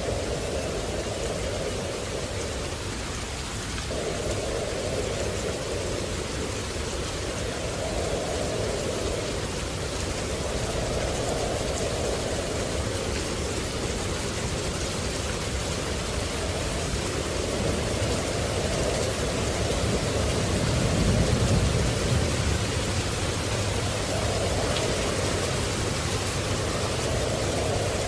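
Steady heavy rain, with a low rumble of thunder swelling about three quarters of the way through.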